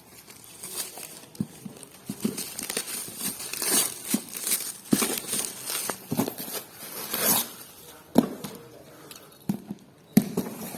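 Parcel packaging handled and opened: crinkling and tearing of wrapping, with scattered clicks and knocks, a few louder tearing noises in the middle.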